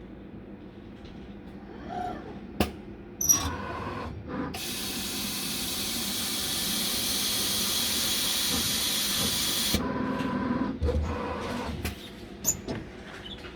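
imes-icore CORiTEC 350i PRO 5-axis CNC milling machine giving a sharp blast of compressed air that hisses steadily for about five seconds and then cuts off suddenly. Mechanical clicks and clunks come before and after the blast.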